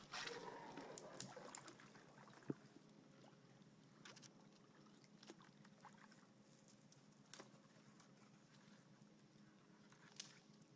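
Kayak being paddled through shallow water: paddle strokes in the water, loudest in the first two seconds, then faint, with scattered light clicks and taps.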